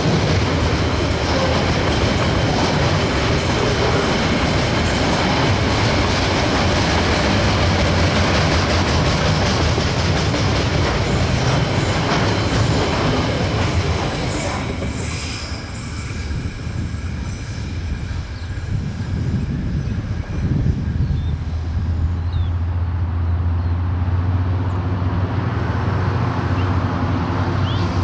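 Freight train rolling past: wagons clattering with a clickety-clack over the rail joints and some wheel squeal. About halfway through the clatter thins out, leaving a steady low rumble.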